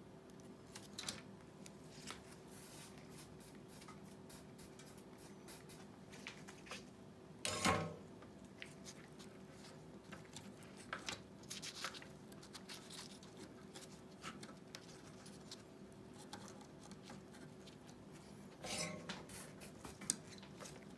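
Small hand-tool and handling noises during a headset repair: scattered light clicks and snips, with two louder rustling handling sounds, one about seven and a half seconds in and one near the end, over a faint steady hum.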